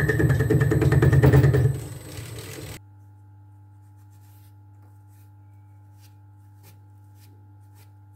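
Homemade lathe running, its chuck-driven single-point fly cutter cutting gear teeth into a small gear blank as a rapid, even chatter over the spindle's rumble. The cutting stops sharply about three seconds in, leaving a faint steady hum and the light scratching of a brush clearing metal chips from the gear.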